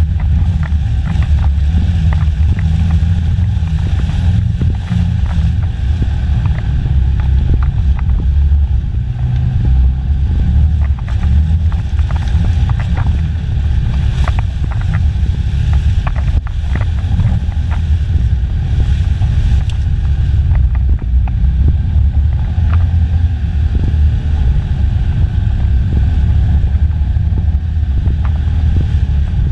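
Polaris Sportsman ACE 570's single-cylinder engine running as the machine drives a rough, muddy trail, a steady low drone with frequent small knocks and rattles.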